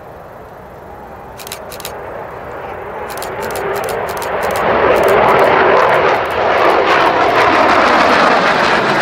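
Two Eurofighter Typhoon jets' turbofan engines climbing out overhead as a pair. The jet noise swells over the first few seconds and stays loud from about halfway in.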